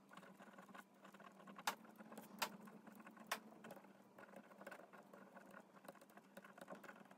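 Faint pen-on-card writing sounds: light scratching and a few soft ticks of the pen on the postcard, over a low steady hum.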